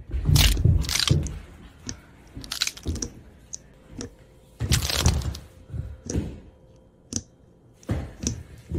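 Slime being squeezed and pressed by hand, giving irregular crackles and pops, a few each second.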